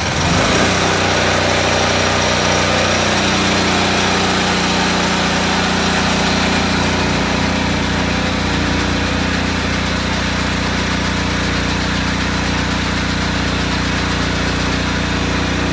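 Engine-driven 30 CFM screw-type air compressor running steadily just after its electric start.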